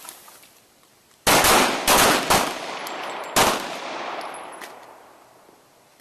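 Handguns fired by several shooters on a firing line, one round each, in a ragged volley: a cluster of shots starting about a second in and one straggling shot about two seconds later, each ringing out and echoing away.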